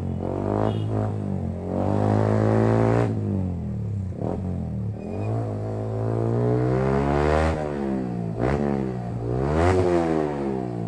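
Yamaha R15M's single-cylinder engine breathing through a loud aftermarket full exhaust, revved up and down repeatedly at low road speed, its pitch climbing and falling about four times.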